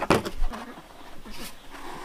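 A knife blade chopping dried cassava against a wooden block: a hard chop right at the start, then quieter scraping and rustling.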